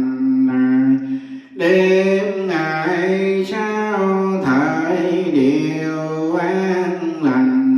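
Buddhist chanting, sung in long held notes over musical accompaniment with a steady low drone, with a brief pause about one and a half seconds in.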